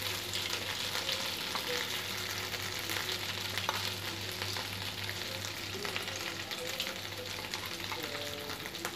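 Hot oil sizzling and crackling steadily in a pan as spoonfuls of frothy egg batter foam fry in it, with many fine pops.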